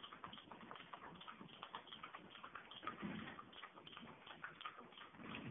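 Faint, irregular small clicks and taps of a toddler handling a plastic toy.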